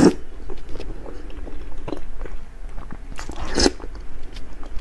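A person biting into and chewing a sauce-glazed piece of eel. There are two loud bites, one right at the start and one about three and a half seconds in, with small mouth clicks of chewing between them.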